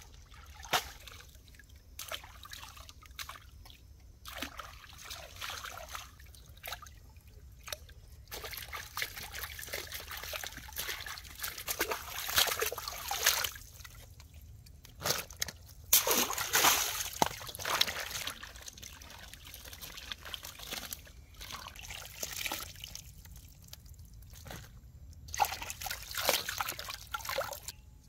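Water sloshing, trickling and splashing in irregular bursts, loudest around the middle and again near the end.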